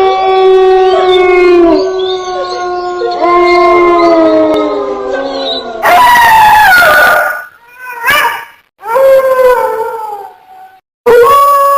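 A series of long, drawn-out canine howls, one after another, most sliding down in pitch as they end. They are played as a horror sound effect.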